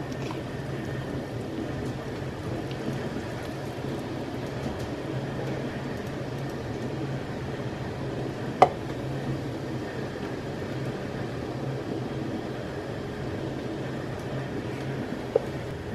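Steady low hum and hiss of kitchen machinery or a simmering pot, with one sharp click about eight and a half seconds in.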